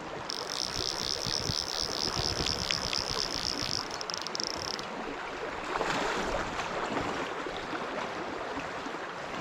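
Small stream running over stones, a steady rush of water. For the first four to five seconds a high, rapid rhythmic chirring sounds over it.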